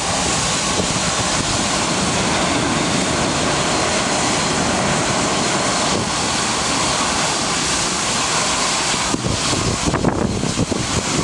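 Bombardier Global Express business jet's twin rear-mounted Rolls-Royce BR710 turbofans running at taxi power as the jet moves off and turns, a steady jet noise. Wind buffets the microphone, gusting harder near the end.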